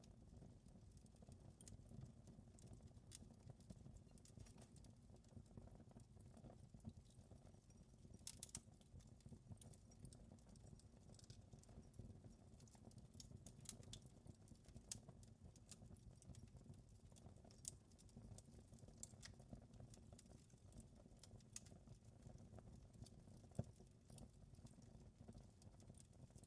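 Faint wood fire crackling, with irregular sharp pops and snaps over a low steady rumble; a few pops stand out louder.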